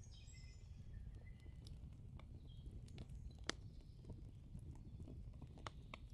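Faint background ambience: scattered, irregular small clicks and crackles over a low rumble, with a few short high chirps in the first second or so.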